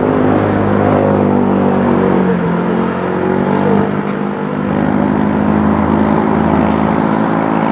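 A motor vehicle engine running close by: a steady hum with several pitch lines that shift slightly about two to four seconds in, over road traffic noise.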